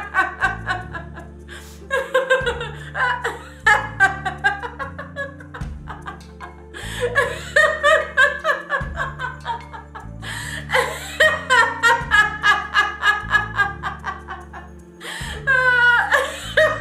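A woman laughing heartily in repeated runs of quick ha-ha-ha pulses, with short breaks between the runs: deliberate laughter yoga laughter. Upbeat background music with a steady bass line plays underneath.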